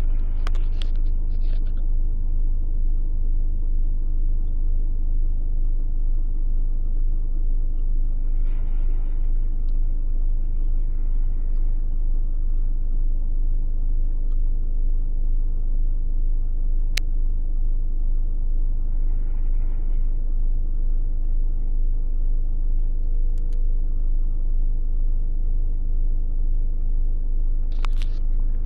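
Steady low drone of an idling car engine heard from inside a car. Two faint rushing swells pass about eight and nineteen seconds in, and there are a few sharp clicks.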